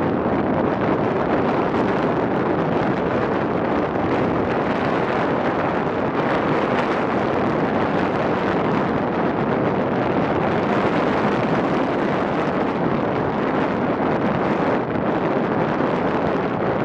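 Wind buffeting the microphone: a loud, steady rushing noise with no let-up.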